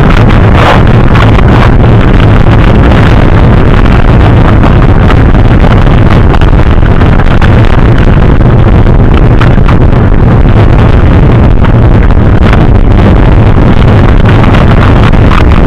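Loud wind buffeting on the microphone, a steady low rumble with a few short clatters.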